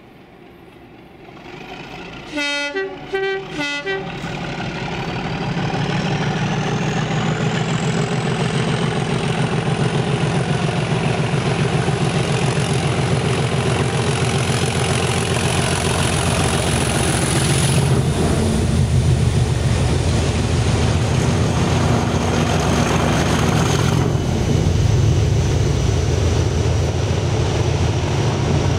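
Class 37 diesel-electric locomotive sounding a few short horn blasts, then passing at speed with its English Electric engine's steady growl. A high whistle rises as it approaches and drops sharply as it goes by, followed by the rumble of the coaches on the rails.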